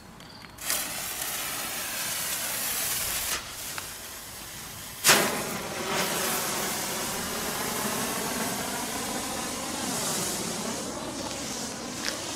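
A handheld green Bengal flare (Nico, F1 class) ignites about a second in and burns with a steady, loud hiss. The hiss drops back briefly, then comes in again with a sudden loud burst about five seconds in, the loudest moment, and carries on steadily.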